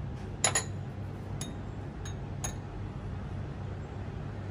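Light, ringing clinks of glass as the small glass bowls of seasoning are handled: a quick double clink about half a second in, the loudest, then three lighter ones over the next two seconds, over a steady low hum.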